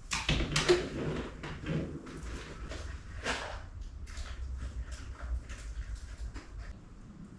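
A string of irregular light knocks, clicks and scrapes, like tools and hardware being handled and set down, coming thickest in the first four seconds and thinning out near the end.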